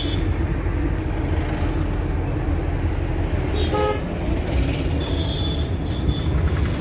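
Steady engine and road rumble inside a moving van's cabin, with a short vehicle horn toot about four seconds in.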